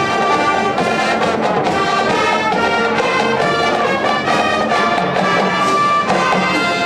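Marching band playing a loud, continuous passage, with brass instruments carrying the music.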